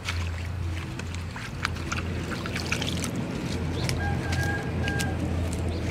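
Hands swishing and lifting lettuce leaves in a stainless steel bowl of water: irregular splashing, sloshing and dripping, over a steady low hum.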